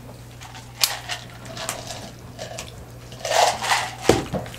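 Eating at the table: crab-leg shells being picked and cracked by hand over plates, a few sharp clicks and a louder crackling stretch a little past three seconds in, with a steady low hum underneath.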